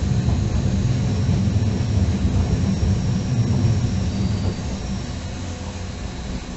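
Stadler FLIRT electric multiple unit running on the track, heard from the driver's cab: a steady low rumble of the wheels and running gear, easing slightly about two-thirds of the way in. Faint high-pitched whistling tones come and go above the rumble.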